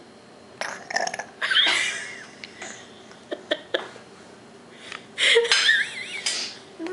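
A baby burping and grunting, with two louder bursts: one about a second and a half in and one about five seconds in.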